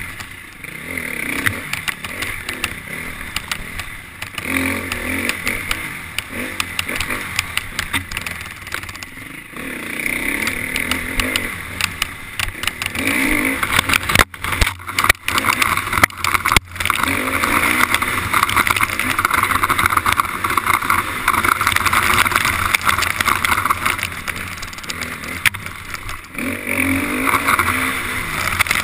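KTM 350 XC-F dirt bike's single-cylinder four-stroke engine revving up and down under hard riding. The sound cuts out briefly a few times about halfway through.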